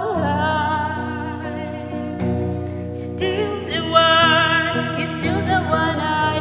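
A woman singing a slow love ballad with long held, wavering notes, over electric guitar and steady backing music.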